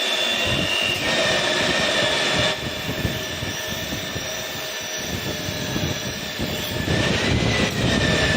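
Vitrex 022 automatic glass drilling machine running: a steady motor whine of several held tones over a hiss. It gets quieter about two and a half seconds in and louder again about seven seconds in.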